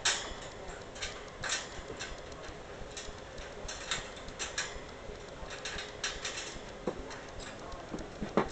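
Irregular metallic clicks and clinks of a metal C clip being worked against the wire bars of a cage by a capuchin monkey's hands.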